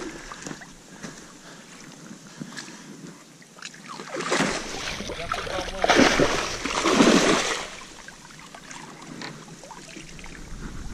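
A grass carp being released, thrashing in the water and throwing up splashes in several surges between about four and seven and a half seconds in.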